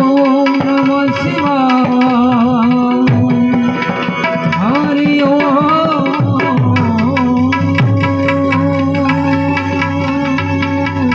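Devotional dhun music: tabla playing a steady rhythm under held harmonium notes, with a wavering melody line over them.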